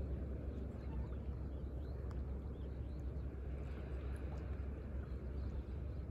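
Steady low outdoor rumble at the water's edge of a breakwater, wind and lapping sea water, with a few faint high chirps around the middle.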